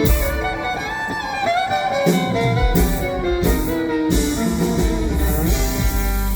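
Live country band playing a fiddle feature: the fiddle plays sliding, bowed lines over electric guitar and drums, and the bass and drums come in harder about two seconds in.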